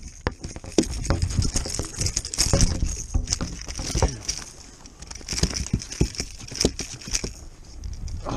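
A hooked garfish being handled: many irregular taps, knocks and slaps as the fish twists in a gloved hand, with rustling of waterproof clothing.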